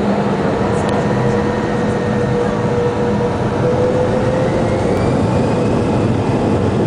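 Cabin noise inside an Airbus A320 airliner taxiing: the jet engines' steady hum and rush, with a faint whine that rises slightly about halfway through.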